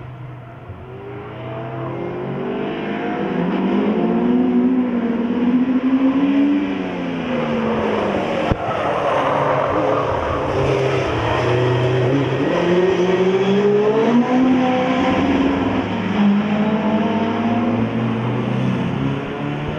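Small hatchback race cars lapping a circuit, their engines revving up and down as they accelerate and lift. The engine notes of more than one car overlap.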